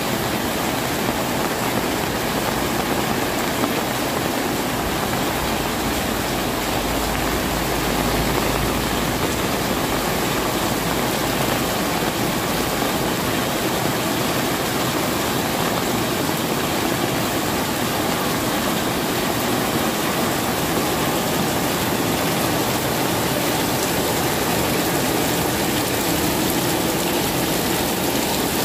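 Heavy rain pouring steadily onto roofs and a wet concrete alley, water running off the eaves in a dense, even hiss. A brief low rumble comes in about seven seconds in and fades two seconds later.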